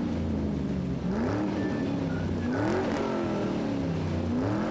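Car engine revving up and easing back down three times, the pitch rising quickly and falling slowly each time, with music faintly underneath.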